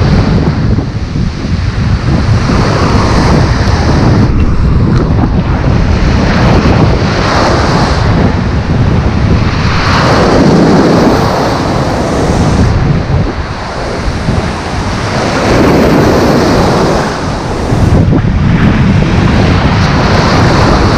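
Strong wind buffeting the microphone over waves breaking on the shore, the surf swelling and easing every few seconds.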